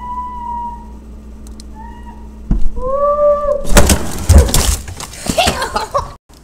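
A pet whining in three drawn-out, high calls, the last one lower and arched. Then comes a loud stretch of rustling and knocking from the phone being handled.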